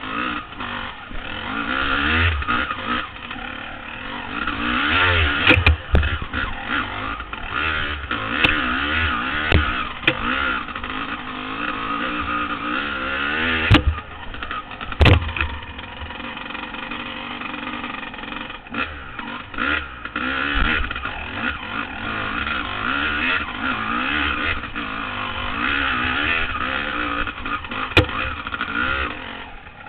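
Honda CR250R two-stroke dirt bike engine revving up and down through the gears on a trail ride, heard from the rider's helmet camera. A few sharp knocks cut through, the loudest about halfway and near the end.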